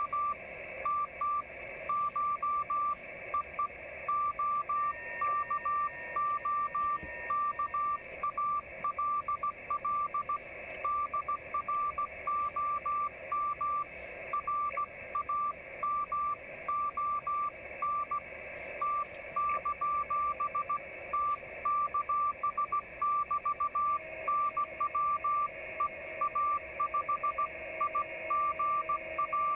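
Morse code (CW) signal from a Yaesu FT-817ND transceiver's speaker: one steady beeping tone keyed on and off in dots and dashes over receiver hiss. A fainter station's tone at a different pitch comes in briefly, and another near the end.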